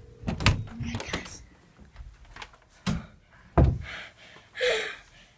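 A series of loud, sharp thumps and knocks, like doors banging and things being bumped, with a short noisy rustle or cry near the end.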